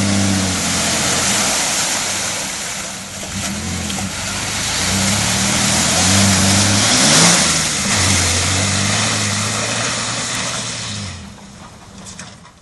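A 4x4's engine revs hard under load while off-roading, its pitch rising and falling several times over a loud, steady hiss. It drops away about eleven seconds in.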